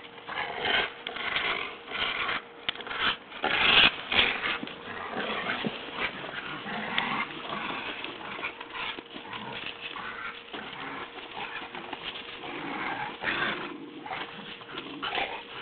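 A Staffordshire bull terrier and a rottweiler growling and scuffling in a game of tug-of-war, in irregular bursts, loudest about four seconds in.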